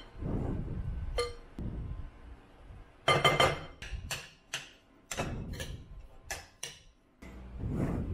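Metal fork and spoon clinking and scraping against a ceramic bowl as food is mixed: a loud cluster of clinks about three seconds in, then single sharp clinks about half a second apart.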